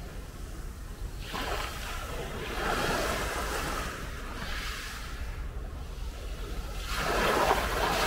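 Small sea waves breaking and washing up the shore: one wash about a second in, and a louder one near the end. A steady low rumble runs underneath.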